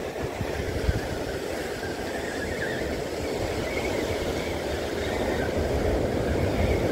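Steady rumble of sea surf and wind buffeting the microphone, with a single knock about a second in.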